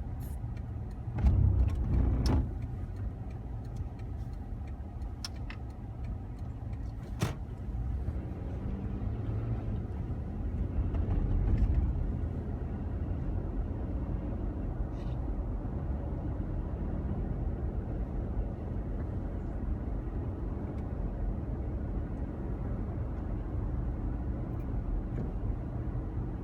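Car running: a steady low rumble of engine and road noise, with a few sharp clicks and knocks, the loudest about two seconds in.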